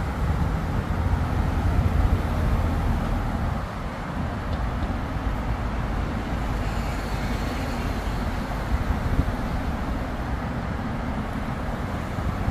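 City street traffic: vehicles passing with a steady low rumble, heaviest in the first few seconds and easing off after about four seconds.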